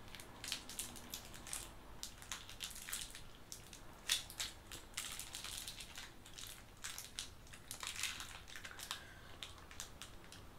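Foil wrapper of a Cadbury Roses chocolate crinkling in the fingers as it is unwrapped, a long run of small irregular crackles.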